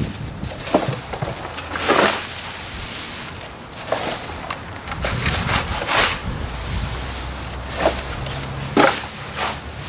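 Shovel scraping and dumping wet yard debris into a plastic trash can: short, irregular scrapes and knocks every second or two.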